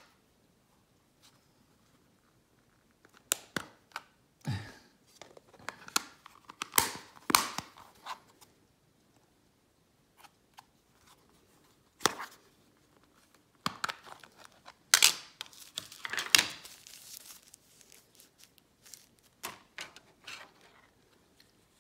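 Handling noise from a small filter case being worked open: scattered sharp clicks and short scraping, rustling bursts with quiet gaps between them, the busiest and loudest stretch about two-thirds of the way through.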